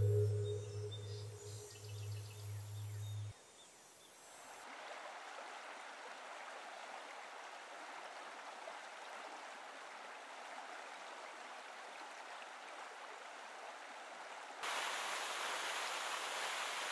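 Background music fading out, then the steady rush of falling water from a 50-foot waterfall plunging into a pool. It is faint at first and grows sharply louder about fifteen seconds in.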